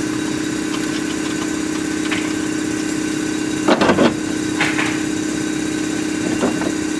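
Steady machine hum from the shop background, like an idling engine or a running machine, holding one even pitch. About four seconds in comes a short, loud metallic rattle.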